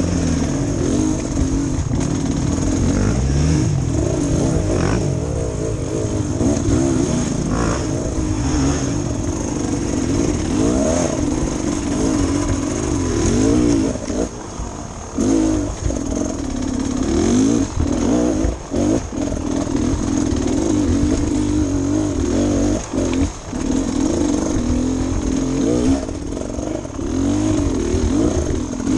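Beta Xtrainer 300 two-stroke enduro motorcycle engine heard from on board, revved up and down as the bike is ridden over rocks and ruts, with several short dips where the throttle is shut off.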